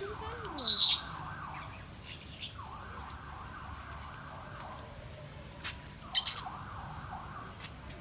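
Captive birds calling: a loud, harsh, high call shortly after the start and a shorter one about six seconds in, over a constant wavering chorus of sweeping calls.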